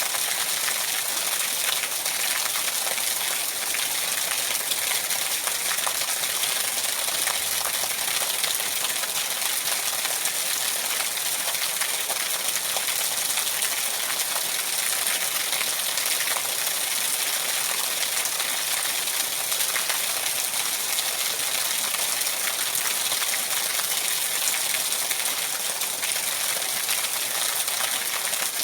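Steady rain falling: an even hiss with a fine patter of drops, not changing in strength.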